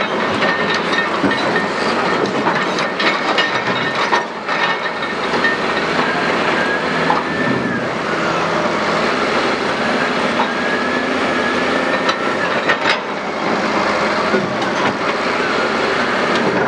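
Heavy quarry machinery at work: a steady mechanical din with scattered clanks and knocks and faint metallic squeals.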